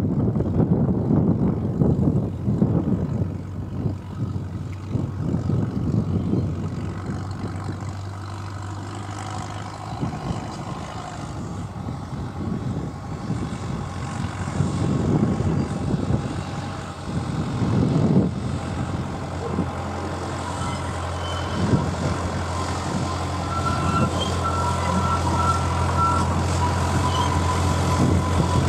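Alan Keef four-wheel diesel-hydraulic narrow-gauge locomotive approaching, its steady diesel engine hum growing louder as it draws near, with a higher whine joining near the end. Gusts of wind buffet the microphone, loudest in the first few seconds.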